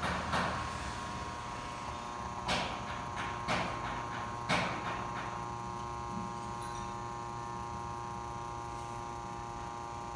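Automatic transmission fluid exchange machine running mid-exchange, its pump giving a steady electrical hum with a few steady tones. A few short knocks sound in the first half.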